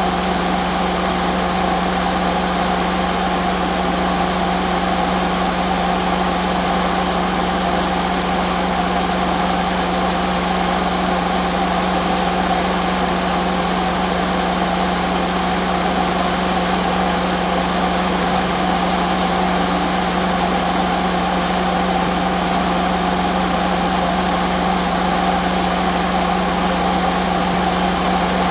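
Ford F250's 7.3-litre Powerstroke V8 turbo-diesel running steadily at one even, unchanging pitch.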